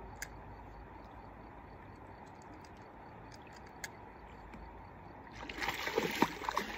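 Faint steady river ambience with a few small clicks, then about five seconds in a hooked sucker fish thrashing and splashing at the surface near the bank for a couple of seconds.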